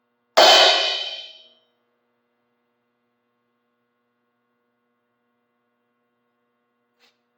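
A single cymbal struck hard once and choked by hand, its crash dying away within about a second.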